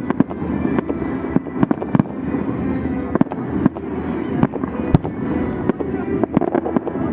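Salute fireworks going off: sharp booms and cracks at irregular intervals, about one or two a second, over a steady background of music and voices.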